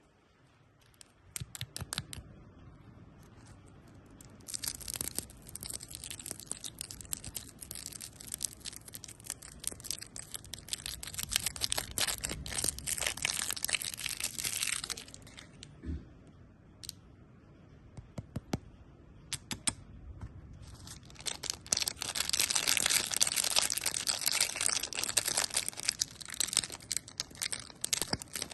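Close-miked candy ASMR sounds: crisp crackling and crunching in two long dense stretches, with scattered sharp clicks between them.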